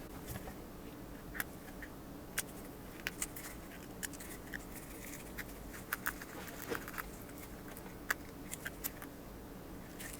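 Scattered small clicks and taps from handling a smartphone and small repair tools, over a steady low hum.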